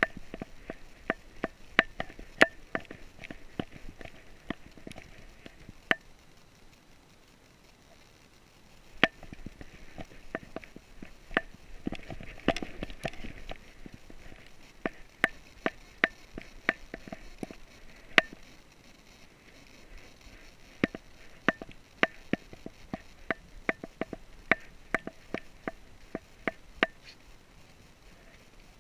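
A dog moving about with gear on its back: irregular sharp metallic clicks and clinks as it walks, with sniffing. The clicks thin out to a quiet stretch about seven to nine seconds in.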